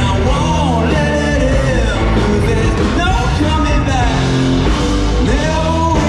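Live rock band playing loudly, with a singer's voice carrying a melody over the band.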